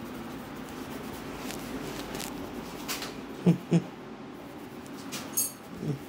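Fingers rubbing and scrunching through hair during a head massage, a fine crackly rustle. About three and a half seconds in, two short, loud pitched sounds come a quarter of a second apart, like calls or yelps.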